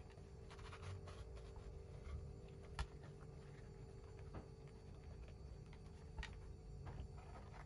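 Faint rubbing and scraping of a silicone bundt mould being worked loose and peeled off a frozen chocolate cake, with a few light taps, over a steady low hum.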